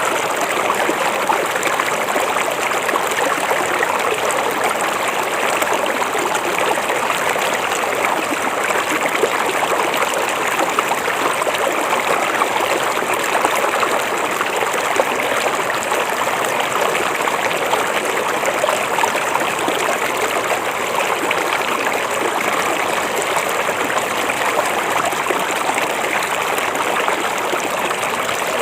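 River water flowing steadily, an even rushing and trickling that holds the same level throughout.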